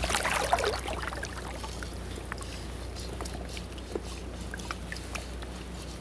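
Choppy lake water lapping and trickling against the hull of a small fishing boat, over a steady low rumble. A louder slosh in the first second, then small scattered drips and ticks.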